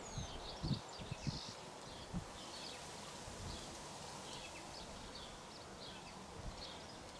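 Faint outdoor ambience with small birds chirping in the distance, short high chirps scattered throughout. A few soft low thumps come in the first two seconds or so.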